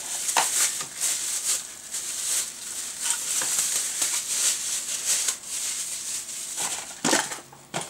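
Clear plastic bag crinkling and rustling in the hands as a small speaker is unwrapped, with cardboard box flaps being handled. There is a louder burst of handling a little after seven seconds.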